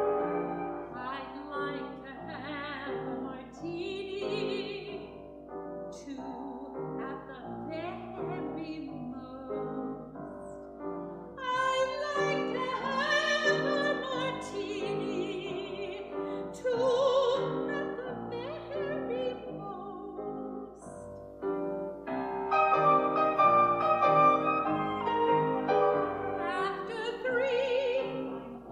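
Classically trained soprano singing an art song in operatic style with vibrato, accompanied by piano.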